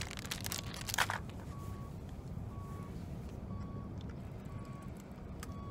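A vehicle's reversing alarm beeping about once a second, each beep short and steady in pitch, over a low steady engine rumble. A brief rustle near the start.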